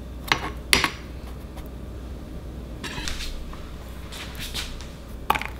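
Metal kitchen tongs clicking and tapping against a nonstick bundt pan as sugar-coated dough balls are set in: two sharp clicks about a second in and another near the end, with softer knocks and rustles between.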